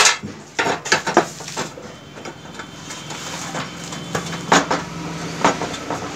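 Metal clanks and clinks as a burner mixing tube is handled and fitted against the sheet-steel body of a two-burner gas stove. There are several sharp knocks in the first second and two more about four and a half and five and a half seconds in.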